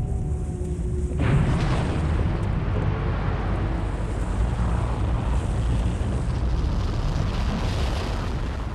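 A sudden deep boom about a second in, followed by a sustained rumbling rush of noise that eases slightly near the end.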